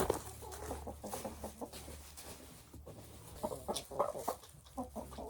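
Chickens clucking softly, short calls scattered here and there with a busier cluster about three and a half to four and a half seconds in.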